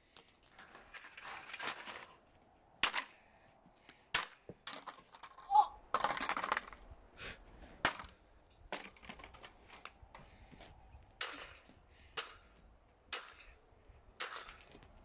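Golf iron striking a plastic and metal stand fan lying in the snow: about nine sharp, cracking hits at uneven intervals, with longer rough scraping noise about a second in and again around six seconds in.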